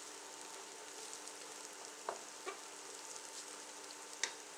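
Sliced onions and garlic sizzling as they sauté in a nonstick pan, a steady frying hiss. A wooden spatula stirs them, knocking sharply on the pan a few times.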